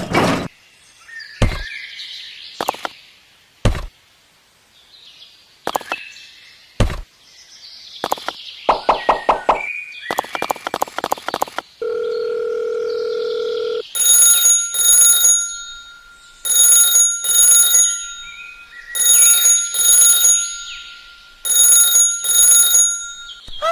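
Scattered clicks and knocks, then a steady electronic beep for about two seconds, followed by an electronic ringing in double bursts, like a phone or alarm ring, repeating four times.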